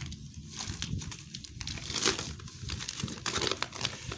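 Clear plastic shrink wrap being peeled and pulled off a cardboard box, crinkling and crackling irregularly, with the loudest crackle about halfway through.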